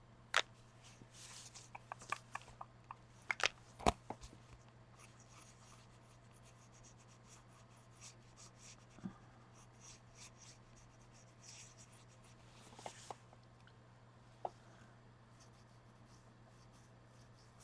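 Quiet tabletop craft work: art supplies scratching and rubbing on paper cards, with scattered sharp clicks and taps as tools are picked up and set down, the busiest stretch in the first few seconds. A low steady hum runs underneath.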